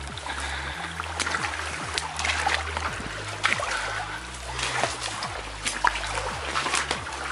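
Water trickling and splashing in a small stream running out of an old coal drift mine, with irregular footsteps crunching and rustling through dry grass and brush.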